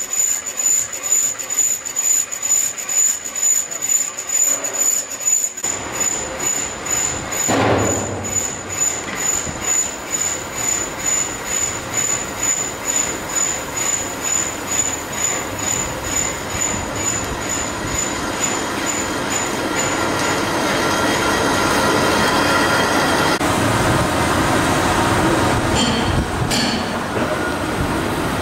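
Workshop machinery running with a regular beat of about two pulses a second and a high steady whine. About two-thirds of the way through, this gives way to a steadier, louder running noise.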